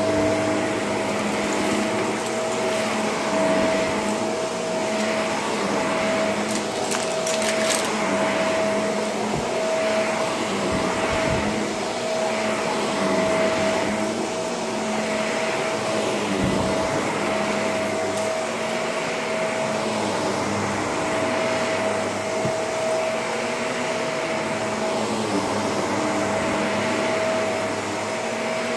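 Shark vacuum cleaner running, a steady whine over a rushing airflow that swells and eases every couple of seconds as it is pushed over the floor. There is a brief crackle about seven seconds in.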